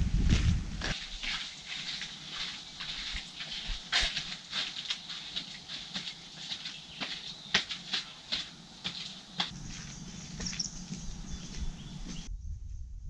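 Footsteps of people walking on a path and steps: irregular sharp scuffs and crunches, a few each second, over a steady high hiss. The sound changes abruptly near the end.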